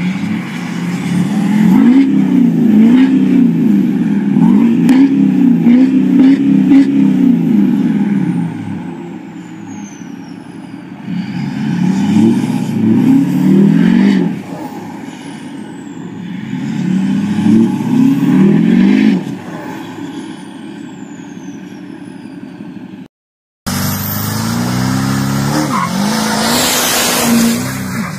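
Duramax 6.6 L V8 turbodiesel in a pickup revved hard while standing still, through a large single exhaust pipe: three bursts of repeated revs, rising and falling, the first the longest, with a thin high whistle that falls in pitch. After a brief dropout near the end, a diesel pickup accelerates away.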